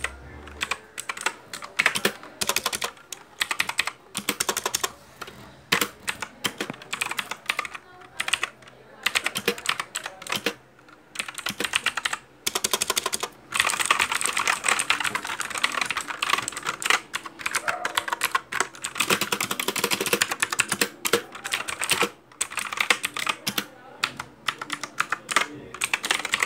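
Fortrek mechanical keyboard being typed on fast: a dense clatter of key clicks in long runs of rapid keystrokes, broken by a few brief pauses.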